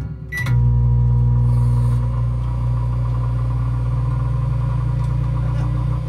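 Microwave oven giving a single short beep, then starting up and running with a steady, even hum.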